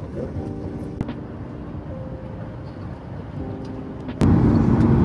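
Jet airliner cabin noise in flight: a steady engine and air drone. About four seconds in it jumps suddenly much louder and fuller.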